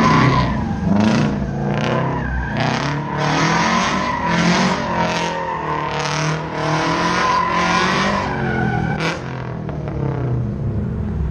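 A car doing a burnout, its engine revving with the tires squealing in surges about twice a second over a steady squeal tone. The squealing stops about nine seconds in.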